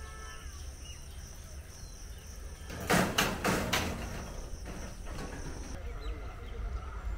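Level-crossing boom barriers clattering as they come to rest closed: a quick run of four or five loud knocks about three seconds in, over a steady insect buzz.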